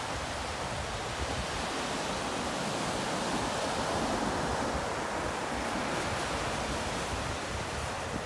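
Ocean surf washing up a sandy beach: a steady hiss of breaking water that swells gently midway and eases off again.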